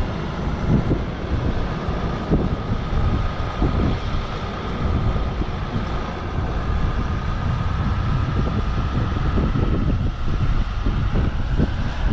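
Car driving along: steady engine and road noise heard from inside the cabin, a low rumble.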